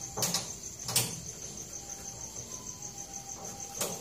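Three sharp metallic clicks, about a quarter second in, about a second in and near the end, from the roll-gap adjustment of a Yanmar RHS40DL rice husker being set by hand, with the husker not running. The gap is being closed from too wide to about the width of one rice grain. A steady, evenly pulsing high insect trill runs underneath.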